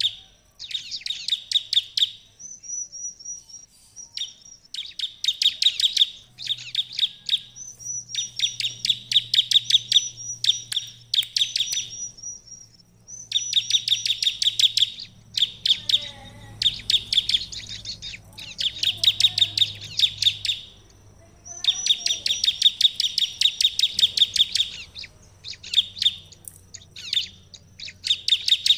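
Bar-winged prinia (ciblek) singing its rapid burst song: runs of sharp, dry chips fired off quickly, each run a second or two long and repeated over and over, with thin high whistled notes in some of the gaps.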